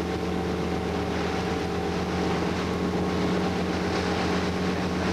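Motorboat engine running steadily with the boat underway, a constant even drone.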